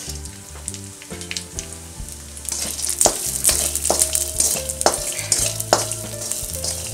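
A spatula stirring and scraping raisins and melon seeds as they roast in a metal kadhai, with a light frying sizzle and a sharp scrape about once a second. Soft background music with sustained notes plays underneath.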